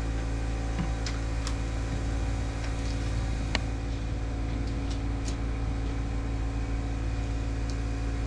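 An engine running steadily at a constant speed, with scattered light taps and clicks over it.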